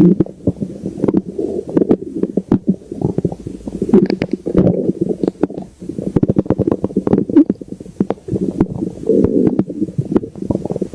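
Stomach growling: a continuous run of irregular low rumbles and gurgles, broken by quick bubbling pops.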